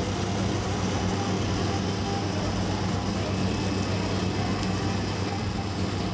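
Steady low electric hum of an oil extraction machine sucking engine oil out through the dipstick tube.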